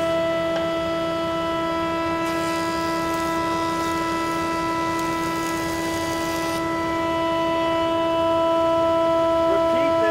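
Woodworking jointer running with a steady, high-pitched whine from its spinning cutterhead. From about two seconds in to about six and a half seconds, a hiss of cutting joins it as a board is fed across the knives.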